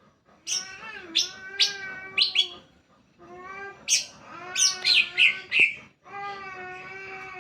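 Green leafbird (cucak hijau) song, used as a lure to get another cucak hijau to sing: three long phrases of steady, pitched notes with many overtones, broken by sharp, high, sweeping chirps and whistles, with short pauses between phrases.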